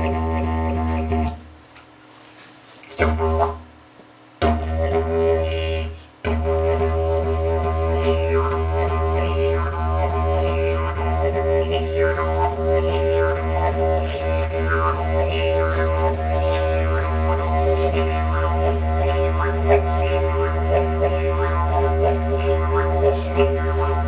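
Hand-crafted wooden didgeridoo playing a low drone with rich overtones. It breaks off twice in the first few seconds, then runs on unbroken with shifting overtones and rhythmic accents.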